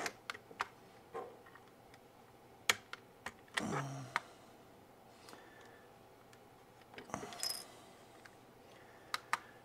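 Scattered small plastic clicks and snaps from a DJI RC smart controller's plastic case as its clips are pried apart at the seam with a plastic opening pick. A short creak comes about seven seconds in.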